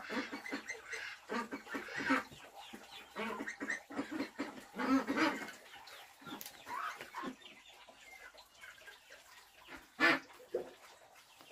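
Chickens clucking, mixed with short cracks and snaps of dry wood being split by hand into kindling strips. One louder snap comes near the end.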